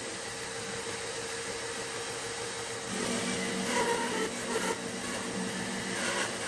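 Bandsaw running and cutting through a thick laminated wooden boat stem: a steady whirring with a motor hum that fades back for the first few seconds and comes up again about three seconds in.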